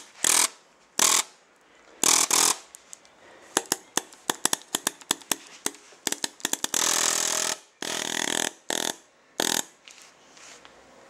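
SL74 electronic paintball marker discharging air without paint: short loud gusts of gas rushing out, with a run of rapid, sharp clicks in the middle.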